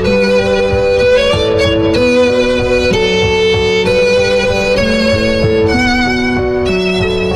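Background music: a melody of held notes that change about once a second over a sustained chordal accompaniment.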